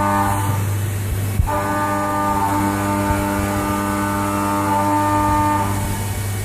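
Haas VF-3 vertical machining centre rough-milling, a steady whine of several pitches from the spindle and cutter. It thins out briefly about half a second in and comes back with a click about a second and a half in, then drops out again near the end.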